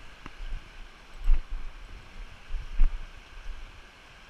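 Mountain trout stream rushing over rocks in shallow riffles, a steady rushing wash. A few low thumps sound over it, the loudest about a second and a half in and just before three seconds.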